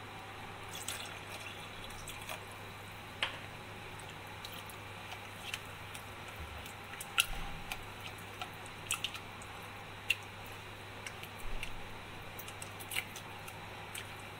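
Silicone spatula stirring thick white sauce in a nonstick pan: soft wet squelches and irregular light clicks and taps of the spatula against the pan, over a steady low hum. More milk is being worked in because the sauce is still too thick.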